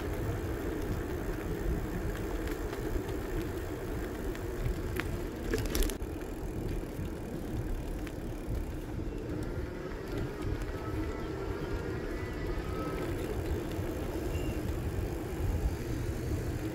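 Steady noise of riding along in a moving vehicle: a deep, uneven rumble under a constant hum, with a couple of brief clicks about five to six seconds in.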